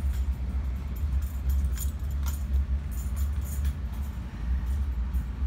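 Interior of a Bombardier Multilevel passenger railcar in motion: a steady deep rumble from the running train, with light clinking rattles from the car's fittings about two seconds in.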